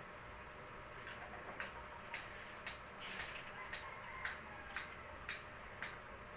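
Steady ticking: sharp clicks at an even pace of about two a second, beginning about a second in.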